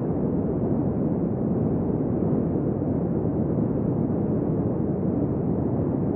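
Steady wind blowing, a deep even rumble without gusts or breaks.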